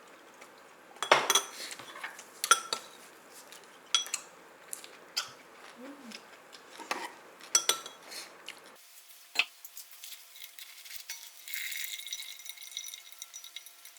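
Kitchen utensils clinking and knocking against dishes and pans, about a dozen sharp strikes over the first nine seconds, then one more knock. Near the end comes a faint hiss, like food starting to sizzle in a pan.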